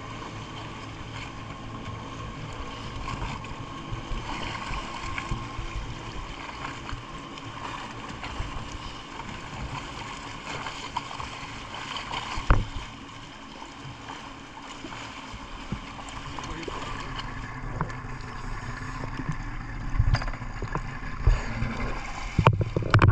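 A motorboat's engine runs steadily under way, with water rushing and slapping against the hull. Near the end come several loud, sudden splashes close to the microphone.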